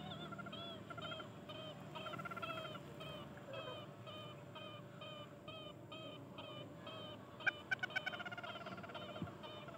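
Chicken yard: fowl giving drawn-out, wavering calls under a fast, even run of short high chirps, about three a second. A few sharp knocks sound near the end.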